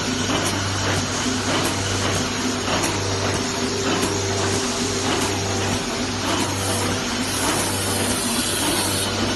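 Automatic band-aid cartoning machine running: a steady mechanical whir and hum, with light clicks from its feeding and pushing mechanism repeating about once or twice a second.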